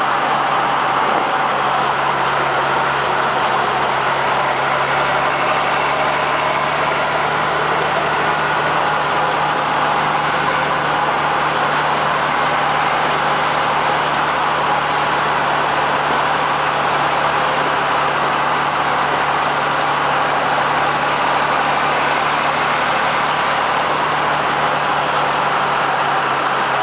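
Steady engine drone of a military vehicle cruising at a constant speed, heard from inside, with road and wind noise over it.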